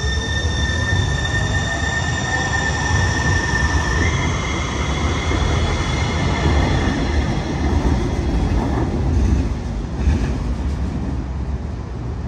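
Siemens S700 light rail train pulling out and passing close: a steady high whine that steps up in pitch about four seconds in, over the low rumble of the wheels on the rails. The whine fades and the rumble dies away near the end as the train moves off.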